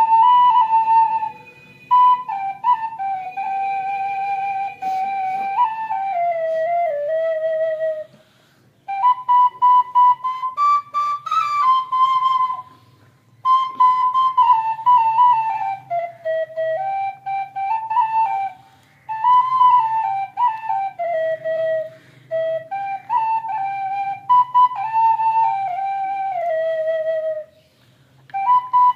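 Bansuri, a side-blown wooden flute, played solo: a melody in phrases that mostly step down in pitch and settle low, with short breaks for breath between them.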